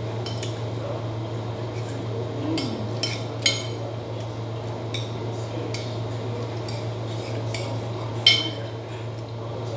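Metal spoon clinking and scraping against a plate while eating, with scattered sharp clinks, the loudest about three and a half and eight seconds in, over a steady low hum.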